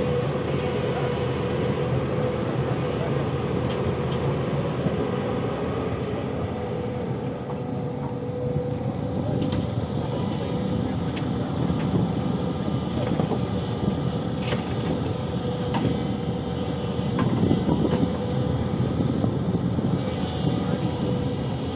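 Heavy diesel engine of construction machinery running steadily under work, with a few sharp metallic clanks scattered through.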